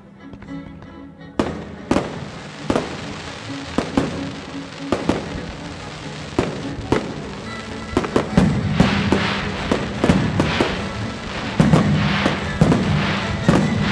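Fireworks shells bursting with orchestral music playing under them: sharp bangs begin about a second and a half in. The bangs come more densely and louder in the second half, with crackling between them.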